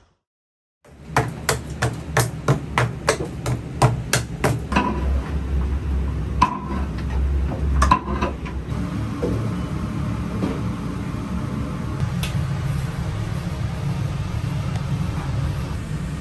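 About a dozen sharp, evenly spaced strikes at roughly three a second in a ramen shop kitchen, followed by a few short ringing metallic clanks, over a steady low kitchen rumble.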